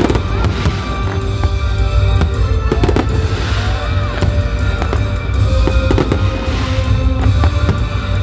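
Fireworks display: repeated bangs and crackles of aerial shells bursting, over music playing throughout.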